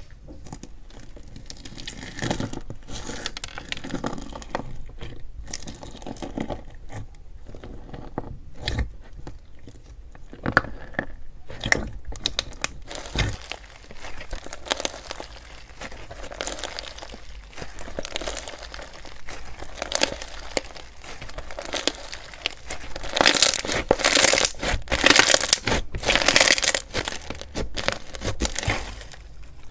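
Crunchy slime being squeezed and pressed by hand, giving a dense run of crackles and pops. It grows louder and crunchier about three-quarters of the way through.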